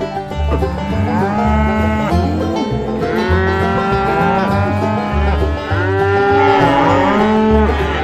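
Cattle mooing: several long, overlapping moos that rise and fall in pitch, in about three bouts. Background music with a steady beat runs underneath.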